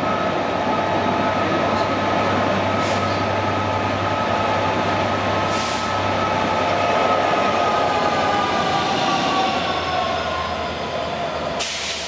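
A locomotive-hauled passenger train moving past along the platform: a steady rumble of wheels on rail with a whine whose pitch falls slightly after the diesel locomotive on the rear goes by, about halfway through. Three short hisses break in, at about three seconds, six seconds and near the end.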